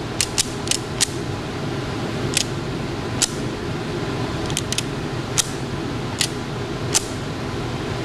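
Scattered light clicks and creaks from handling a plastic iPad dash-mount frame in the hands, over a steady low background hum.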